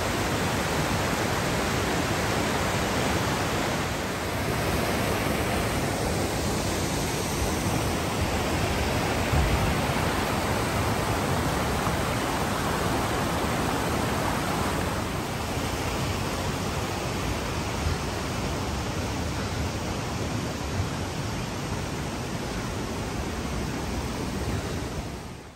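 Whitewater River rushing below Whitewater Falls: a steady, even hiss of fast-flowing water.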